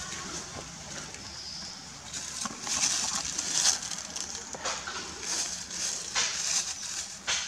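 Dry leaf litter rustling and crackling as a long-tailed macaque rummages through it with its hand, in a string of short crisp bursts, the busiest a few seconds in.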